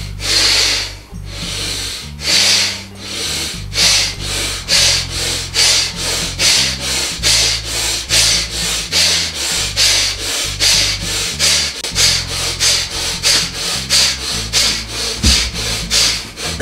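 A man's forceful, rhythmic breathing in a dynamic breathwork exercise: loud hissing breaths that start slow and quicken to about two a second. A low music drone runs underneath.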